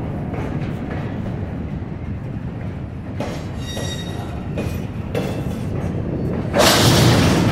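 Intermodal freight train's well cars rolling past at close range: a steady rumble of steel wheels on rail with scattered clanks and a brief faint wheel squeal. A louder rushing burst comes near the end.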